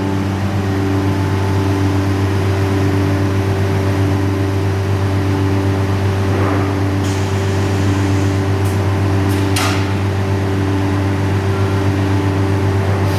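Holz-Her Unimaster 7226M CNC router running a program, with a loud, steady, multi-tone machine hum. Short, sharp hissing sounds come about seven seconds in and three more times around nine to ten seconds.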